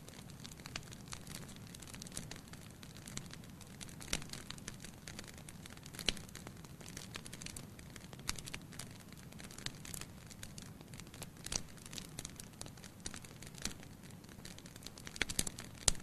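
Firewood logs burning in a fireplace: irregular sharp crackles and pops over a steady low rumble of the fire. The loudest pops come about four, six and eleven and a half seconds in, with a cluster just before the end.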